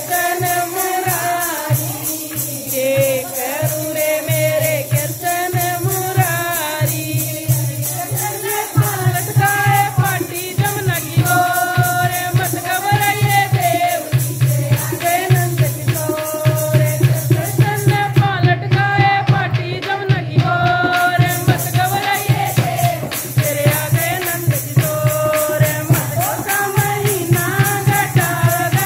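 Women singing a Hindi devotional bhajan about Krishna's birth over a steady, fast percussion beat.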